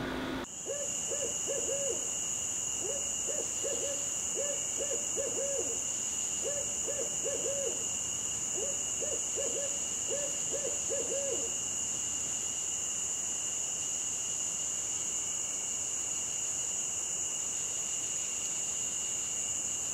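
An owl hooting in several quick phrases of short hoots, which stop about halfway through, over a steady high-pitched drone.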